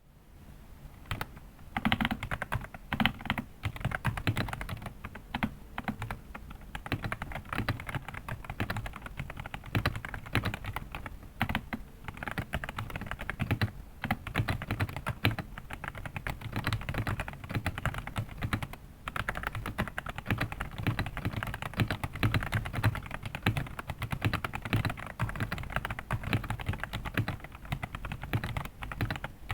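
Typing on a DAREU A98 Pro mechanical keyboard: fast, continuous keystrokes beginning about a second in, with a clacky, slightly hollow sound.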